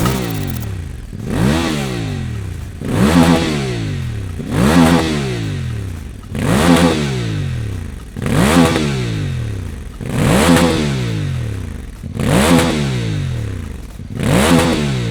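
VOGE DS 800 X Rally motorcycle with a Scorpion stainless slip-on exhaust, blipped eight times in a row from idle, about one rev every two seconds. Each rev rises sharply and then falls back.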